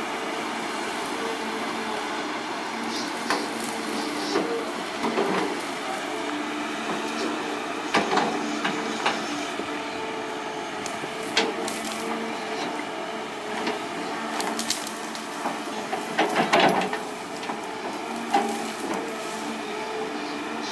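Caterpillar hydraulic excavator's engine and hydraulics running steadily, overlaid by repeated cracking, snapping and crunching as the bucket tears through cassava stems, roots and soil. The cracks are loudest about 8 seconds in and again around 16 to 17 seconds.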